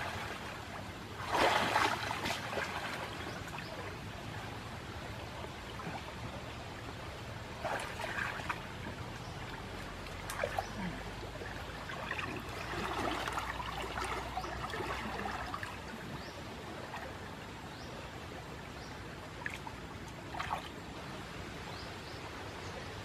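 River water running steadily, with splashes and sloshing as a person swims and wades through it; a louder splash comes about a second and a half in, with smaller splashes later.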